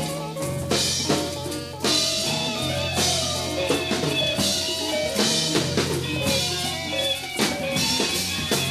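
1974 studio recording of a jazz ensemble, dubbed to cassette: a drum kit plays busily with frequent cymbal and drum strikes over held low notes and sustained higher tones.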